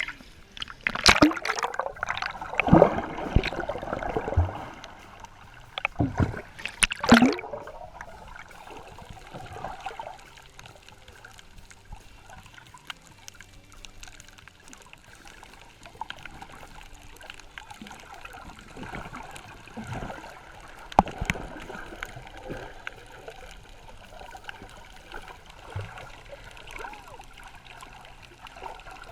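Sea water splashing and gurgling against the camera while snorkeling: loud splashes in the first few seconds and again around seven seconds in, then quieter sloshing and bubbling with a few knocks.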